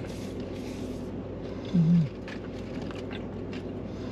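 A short, low hummed voice sound about halfway through, slightly falling in pitch, over a steady low background hum with faint small clicks.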